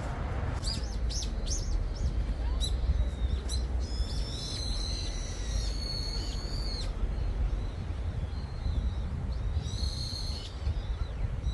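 Wild birds singing: a few quick, falling chirps about half a second in, a longer song of high whistled notes from about four to seven seconds, and another short phrase near ten seconds, over a low, steady rumble.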